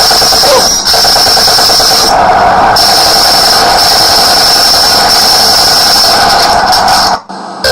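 A loud burglar alarm sound effect: a steady high whine over a fast-rattling, machine-like drone, with a brief drop-out near the end.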